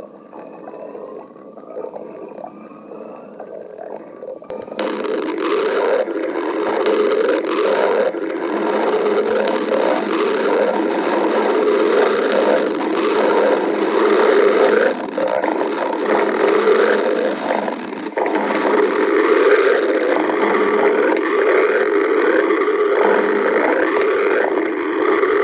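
Stomach growling: a few seconds of fainter gurgling with rising squeaky tones, then, about five seconds in, a loud, long, continuous growling rumble starts suddenly and goes on without a break.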